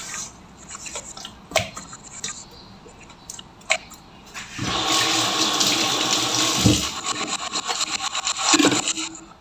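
Hands squelching and patting a marinated raw whole chicken in a stainless steel bowl, with a few small wet clicks. About halfway in, a steady rush of running water starts, much louder than the handling, and stops about four seconds later.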